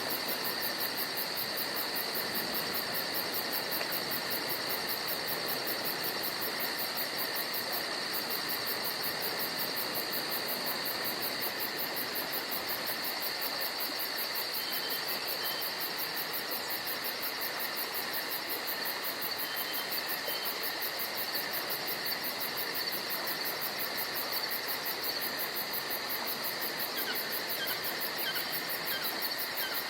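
Ambience of an insect chorus: steady cricket-like trilling with a very fast, even pulsing high chirp, and a few faint short chirps in the second half.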